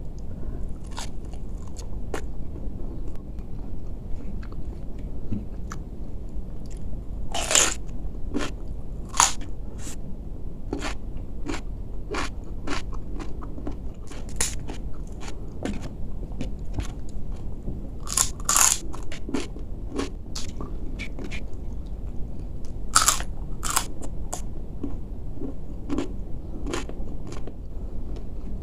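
Close-up eating sounds: a person biting and chewing crisp food, with sharp crunches coming irregularly, the loudest about a quarter of the way in, around two thirds of the way in and a little after. A steady low background hum runs underneath.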